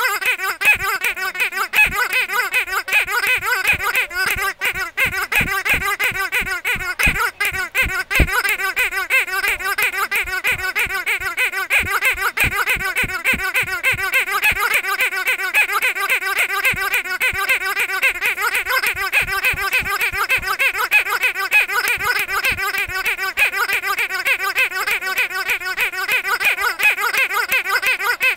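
A pink rubber squeaky dog toy squeezed by hand over and over, giving a fast, continuous run of high squeaks that waver up and down in pitch.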